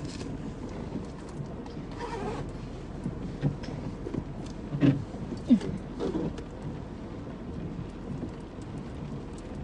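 Steady rain falling, with a few brief knocks and short faint vocal sounds around the middle.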